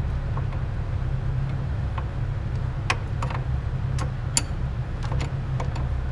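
Scattered light clicks and clinks of tools and parts while a car's engine bay is worked on, over a steady low hum. The sharpest clicks fall about three and four and a half seconds in.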